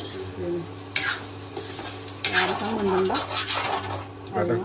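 A spoon stirring and scraping food in a cooking pan, with sharp clinks about one and two seconds in and frying sizzle underneath. Short bits of a voice come in between.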